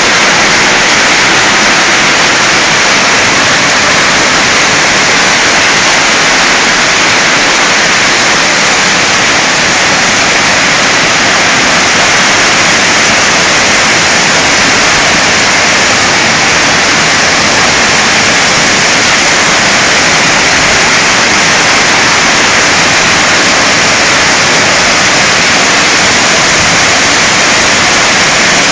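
Heavy hail falling, with countless hailstones landing at once. Together they make a loud, steady noise that does not let up.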